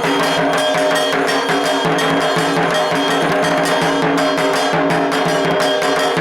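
Music with a quick percussion beat and ringing, bell-like tones.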